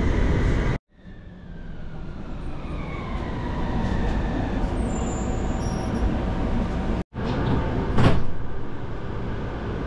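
Utsunomiya Light Line HU300-series tram's electric traction motors whining, the tones falling steadily in pitch as the tram brakes and slows, over a running rumble. The sound breaks off abruptly twice, and a short loud burst of noise comes about eight seconds in.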